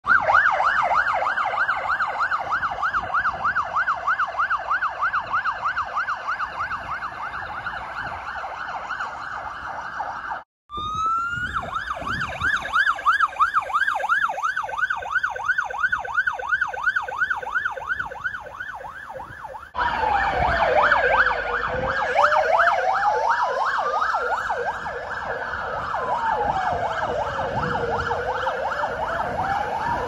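Australian ambulance siren in fast yelp, sweeping up and down about four times a second. It cuts out briefly about a third of the way through and restarts with a rising wind-up. From about two-thirds of the way, a slow wail rising and falling over several seconds sounds together with the yelp.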